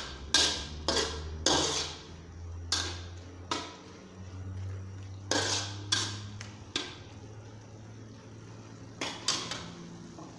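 Metal spatula clanking and scraping against an aluminium wok while stirring chopped fish balls and fish cake. The strikes come irregularly, thicker in the first few seconds, over a low steady hum.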